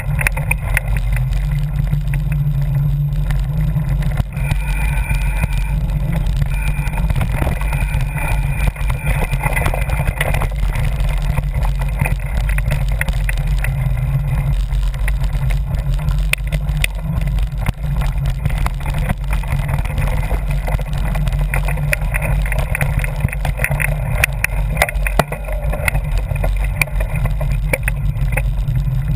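Wind buffeting the microphone of a camera moving along a rough dirt trail, a steady low rumble with frequent small clicks and rattles from the mount as it jolts over the ground.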